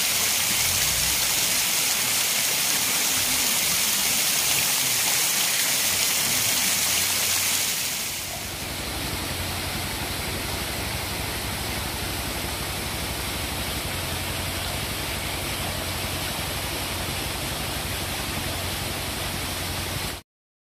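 Water from a small waterfall falling in thin streams down a mossy rock face, a steady rain-like splashing rush. About eight seconds in it changes to a slightly quieter, steady rush of falling water, and it cuts off abruptly near the end.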